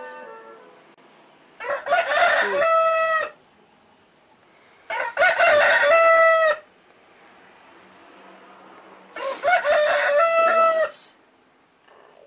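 A rooster crowing three times, each crow about a second and a half long and ending on a held note, a few seconds apart.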